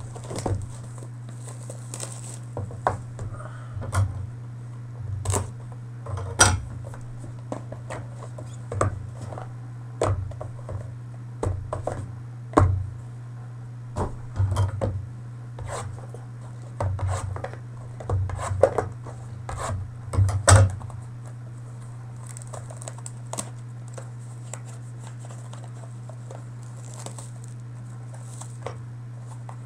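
Trading cards and their cardboard packaging being handled: irregular rustles, scrapes and taps that stop about two-thirds of the way through, leaving only a steady low hum.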